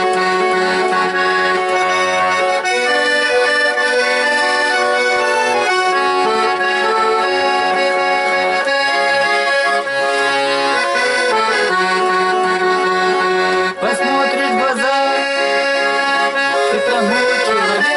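Accordion playing an instrumental break in a song, held chords changing every second or two.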